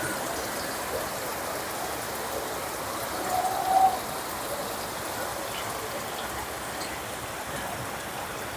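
Steady hiss of water, with a short high tone about three seconds in.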